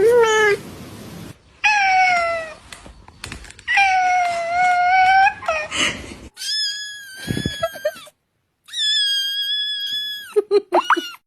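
A series of cat meows: about five drawn-out calls, the last two higher-pitched, then a few short quick calls near the end.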